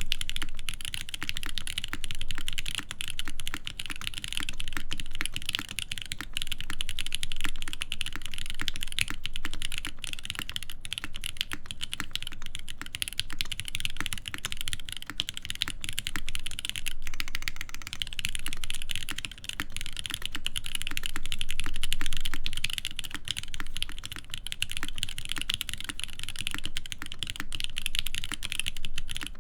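Fast, continuous typing on a mechanical keyboard with an aluminium plate and lubed linear switches (Cherry top housings, Giant v3 stems, Gateron Ink bottom housings) under GMK keycaps: a dense stream of keystrokes with no pauses.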